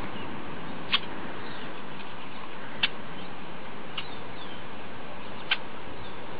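Steady outdoor background hiss with four short, sharp, high chirps spaced one to two seconds apart and faint high squeaky twitters.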